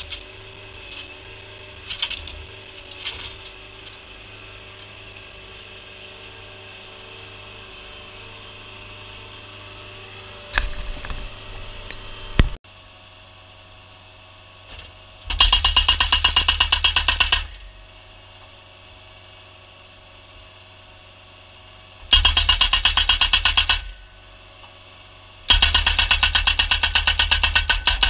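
Premier PD1000 rapid-fire post driver on a skid steer hammering a wooden post into the ground in three bursts of a couple of seconds each, every burst a fast, even train of blows. Before them a skid steer engine runs steadily, with a few clicks and a louder stretch about ten seconds in.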